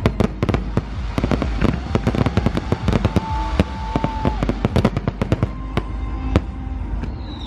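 Fireworks display going off: a rapid barrage of sharp bangs and crackles, several a second, over a continuous low rumble.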